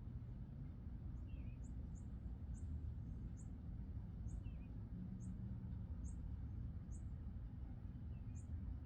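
Small birds calling outdoors: a thin, very high chirp repeats about once every 0.7 s, and a lower, wavering call comes every few seconds. All of it sits over a steady low rumble.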